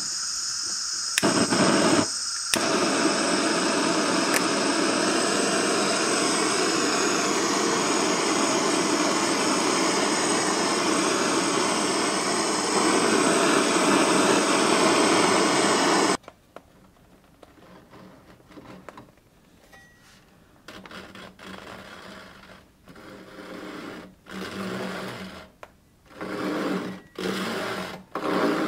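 Hand-held butane cartridge blowtorch lit with a click, then burning with a loud, steady hiss. It cuts off suddenly about sixteen seconds in, followed by quieter, scattered handling noises.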